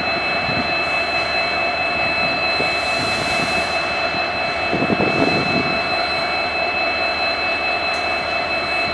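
A pair of EMD WDG4 diesel locomotives idling, their 16-cylinder EMD 710 two-stroke engines running steadily under the high steady whine of the turbochargers. A brief louder rumble comes in about five seconds in.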